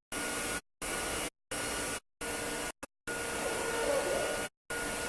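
Steady fan-like air hiss with a faint whine, broken about six times by short gaps of total silence.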